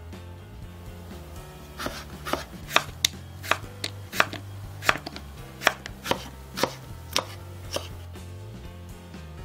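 Kitchen knife cutting through Korean radish onto a wooden cutting board: about a dozen crisp chops, roughly two a second. They start about two seconds in and stop shortly before the end.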